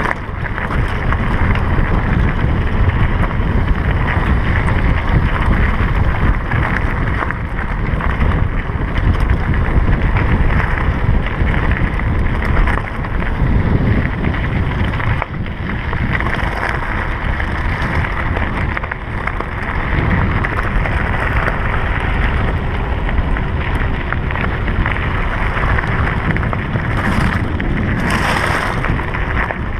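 Wind rushing over the action camera's microphone, together with mountain bike tyres rolling fast over a loose gravel road, a dense, steady noise with a grainy, crunching texture.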